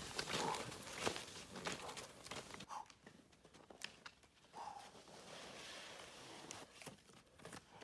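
Faint, irregular scrapes and clicks of skate skis and ski poles on snow, dying away as the skier moves off.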